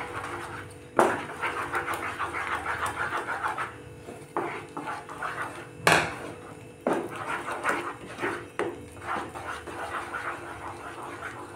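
A wooden spatula scraping and stirring a thick palmyra-fruit and semolina dough in a non-stick pan, in quick rhythmic strokes, with a few sharper knocks of the spatula against the pan, about a second in and around six and seven seconds in. The mixture is cooking down and stiffening.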